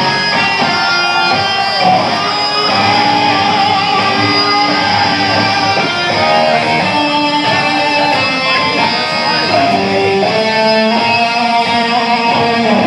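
Live rock band playing with electric guitar, loud and continuous.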